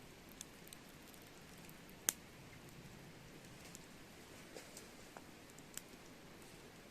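Wood campfire crackling: scattered sharp pops over a faint steady hiss, the loudest pop about two seconds in.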